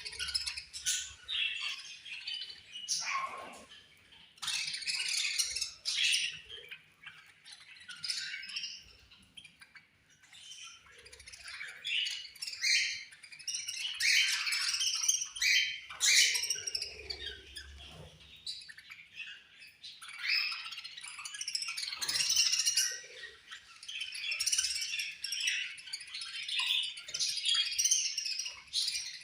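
A group of budgerigars chirping and chattering, with harsher squawks mixed in, in clusters of rapid high chirps with brief lulls.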